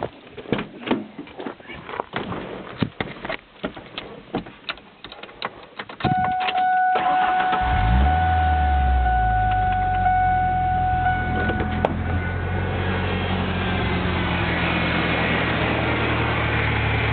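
A few seconds of clicks and knocks, then a steady electronic warning tone. About eight seconds in, the starter cranks briefly and the 1997 Ford Ranger's engine catches and settles into an idle through its Flowmaster exhaust. The idle is not as it should be: the truck has a persistent misfire that new plugs, wires, coil packs, IAC valve and vacuum lines have not cured.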